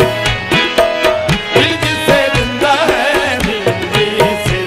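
Live qawwali music: tabla beating a quick rhythm under held harmonium notes, with a singer's voice rising and falling in the middle.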